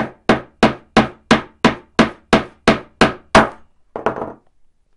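Small hammer tapping a pin through the blade pivot of a Vauxhall flip key: about eleven quick, even metal-on-metal strikes, roughly three a second, driving the pin home. The strikes stop about three and a half seconds in, followed by a brief light rattle.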